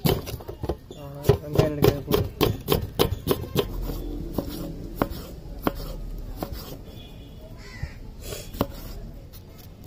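Knife slicing onions and tomatoes on a wooden chopping block: a run of sharp taps as the blade strikes the wood. The taps come quickly for the first few seconds, then slow to scattered single strokes.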